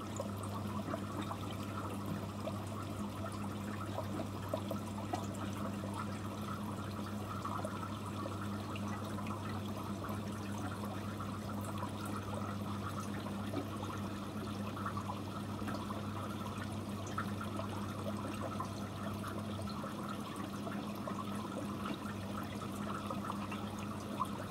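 Steady trickling and bubbling water from an air-driven aquarium sponge filter, over a steady low hum.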